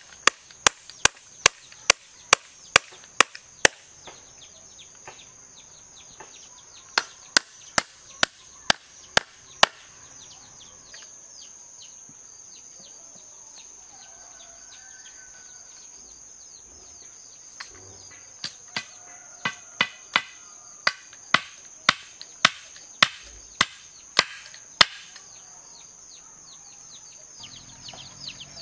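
Repeated chopping strikes, about two to three a second, in three runs with pauses between, over a steady high-pitched drone.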